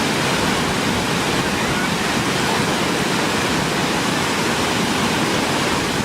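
Waterfall on Kulen Mountain, a steady, loud rush of falling water.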